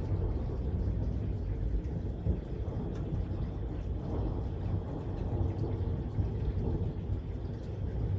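Wind gusting and buffeting against the microphone, a steady low rumble that rises and falls.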